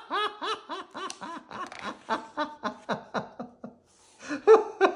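An adult voice laughing in a rapid run of short 'ha' and 'hee' bursts that fade and drop in pitch, breaks off briefly, then starts again louder near the end.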